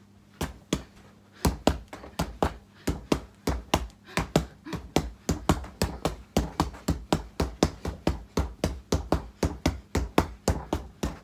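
Fists punching a Gallant free-standing punch bag in a fast run of dull thuds, about three to four a second, quickening after the first second or so.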